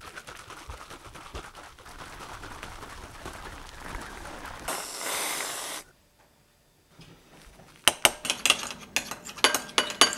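Handling noise with faint ticks, and a brief hiss about five seconds in. From about eight seconds, a quick run of sharp, ringing clinks: a metal utensil knocking against glass or dishware.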